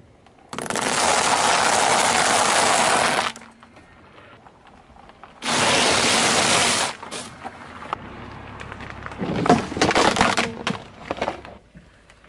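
A car tyre rolling over and crushing dry egg noodles: loud, dense crunching for about three seconds. After a short pause comes a second burst of crunching as puffed corn snacks are crushed, which thins into scattered cracks and crackles.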